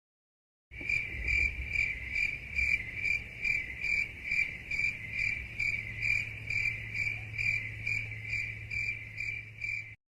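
Cricket chirping sound effect: a steady run of short, evenly spaced high chirps, about two and a half a second, over a faint low hum. It starts after a moment of silence and stops abruptly just before the end.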